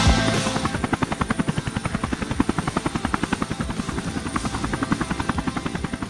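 A rapid, even chopping beat like a helicopter's rotor, getting fainter near the end.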